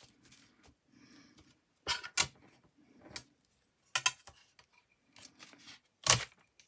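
Craft tools and supplies being handled on a desk: a few sharp clicks and knocks, some in quick pairs, spaced a second or two apart.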